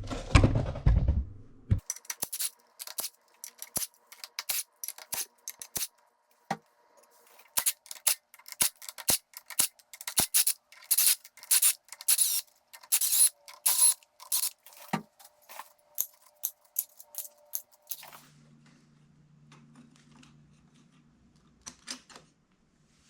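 Hand tools clicking and clinking against metal parts while a dirt bike's clutch side is taken apart. The clicks come singly and in quick runs from about two seconds in. They stop well before the end, leaving a faint low hum.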